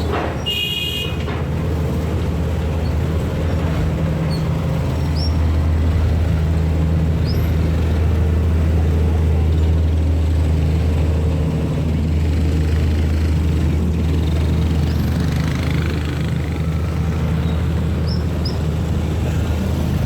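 Steady low rumble of an engine running. A brief high-pitched tone like a horn sounds just under a second in.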